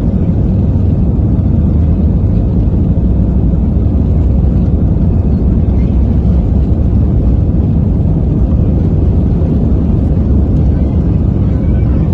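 Airbus A320 jet engines at takeoff power, heard from inside the cabin over the wing: a loud, steady low rumble as the airliner runs down the runway and lifts off.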